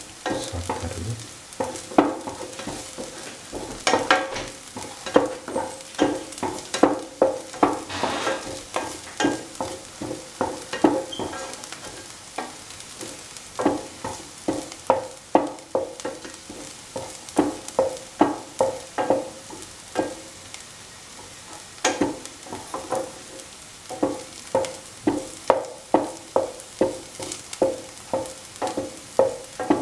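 Sliced shallots frying in a little oil in a pan, sizzling while a utensil stirs them, scraping against the pan in runs of quick strokes, about two or three a second, with two brief pauses.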